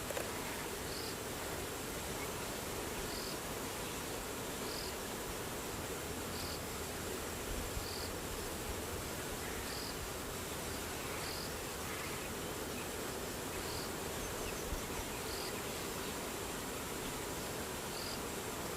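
Insect ambience: a short, high chirp repeats about every two seconds over a steady hiss and a faint, steady high-pitched drone.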